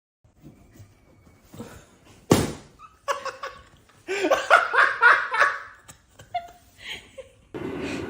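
Hearty human laughter, loudest about four to five and a half seconds in, with a single sharp knock a little over two seconds in.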